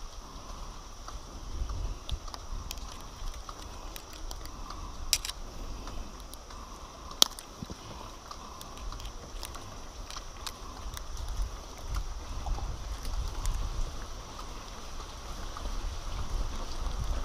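Small sharp clicks and handling noises of fishing pliers and a fish lip grip as a hook is worked free from a giant river prawn, over a low, uneven rumble on the microphone. The sharpest click comes about seven seconds in.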